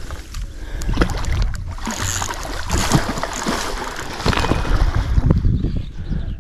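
Water splashing as a hooked salmon thrashes at the surface close to the bank, with wind buffeting the microphone and short knocks. The splashing is densest in the middle.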